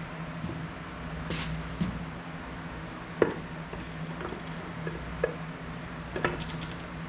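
Scattered metallic clinks and knocks of a torque converter being turned and pushed onto a TH400 transmission's input shaft to seat it, over a steady hum; the sharpest knock comes a little past three seconds in.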